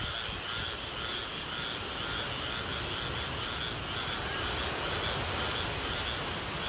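Frogs calling in a steady, pulsing chorus, about two calls a second, over the low rumble of hurricane wind and rain.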